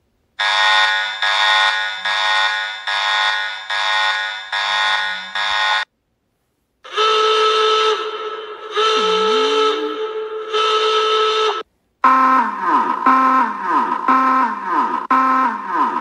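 Three electronic emergency alert alarm tones in a row, each separated by a brief silence. The first is a buzzy alarm that pulses about six times. The second is a steady held tone broken into three parts, and the last, starting near the end, is a tone that sweeps downward over and over, about one and a half times a second.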